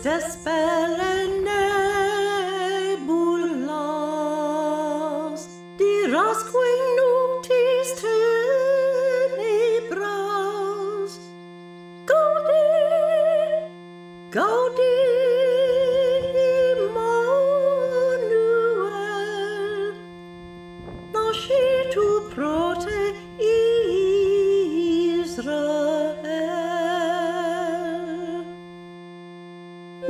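Background music: a solo voice sings slow, drawn-out phrases of a Latin hymn with strong vibrato, over a steady held drone. The phrases are a few seconds long, with short pauses in which only the drone sounds.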